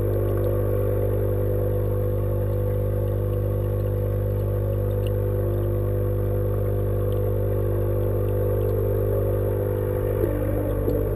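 Steady low mechanical hum with a strong drone and many overtones, unchanging until a brief irregular warble about ten seconds in.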